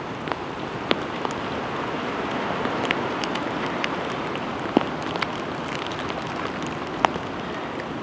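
Steady rain, an even hiss of falling drops, with a few sharp taps standing out above it.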